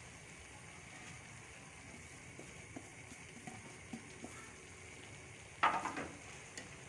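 Faint steady sizzle from a large metal pot of steaming, nearly dry rice on the heat, with a few light ticks. About five and a half seconds in there is a brief louder scrape of a metal spoon stirring shredded cabbage into the rice.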